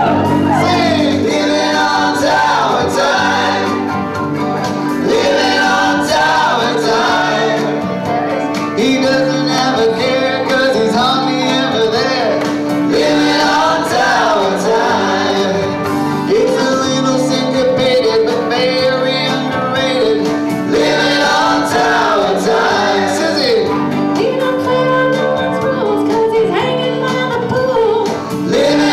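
Live band playing a song while several men and women sing together into microphones, over a steady low held drone.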